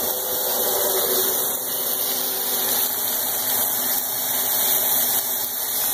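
Steady, even hiss with a faint low hum under it, from ground beef cooking in a frying pan on an electric stove.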